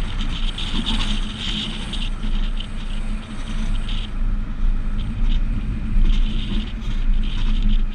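Road noise while being towed behind a pickup: a steady deep rumble of wind on the microphone and tyres on pavement, with a higher scraping hiss that comes and goes.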